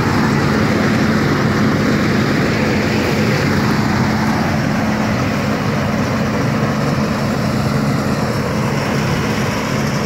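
KS Agrotech KSA 8500 4WD combine harvester running steadily under load as it cuts and threshes a standing crop, its diesel engine and threshing machinery giving a continuous low hum under a broad mechanical noise.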